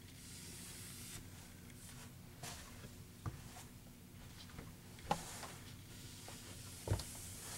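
Faint rubbing and swishing of a cloth rag wiped over a stained oak tabletop, with a few soft knocks, the loudest near the end.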